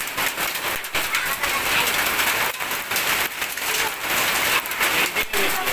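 Heavy rain and hail falling on waterlogged ground: a steady hiss of rain with scattered sharp clicks of hailstones striking.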